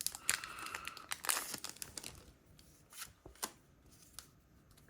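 A foil Pokémon booster pack wrapper being torn open and crinkled, a dense crackling for about two seconds, then a few lighter clicks and ticks as the pack and cards are handled.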